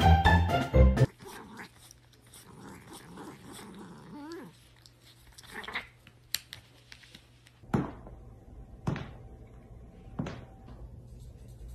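Music that stops about a second in, then faint cat vocal sounds with a rising and falling call near the middle. Four sharp knocks follow near the end, about a second and a quarter apart.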